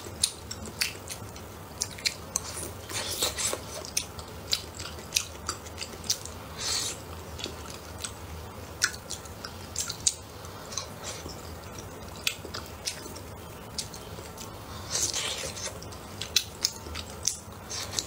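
Close-miked eating of soft wontons in chili-oil broth: wet chewing with many sharp mouth clicks, and a few longer hissing slurps.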